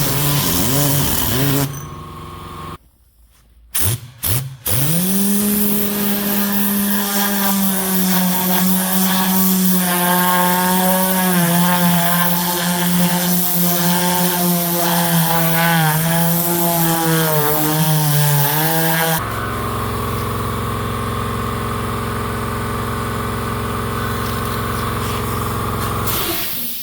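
A small motor, like an electric power tool, runs steadily with a slight wavering in its pitch. It is heard in a few short clips cut together, with a change to a different steady motor hum about two-thirds of the way through.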